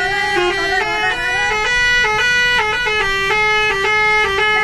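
Indonesian 'telolet' bus horn playing a quick melody, several horn notes sounding together and stepping from pitch to pitch.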